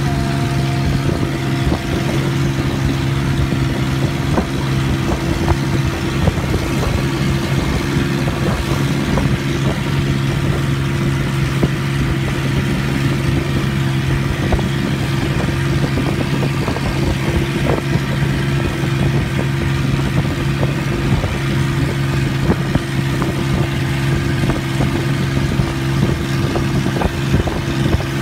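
Long-tail boat's engine running at a steady speed, a constant low drone that holds the same pitch throughout.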